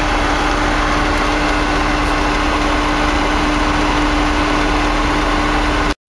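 Vehicle engine running steadily with a constant low hum, heard from inside the cabin. It cuts off abruptly near the end.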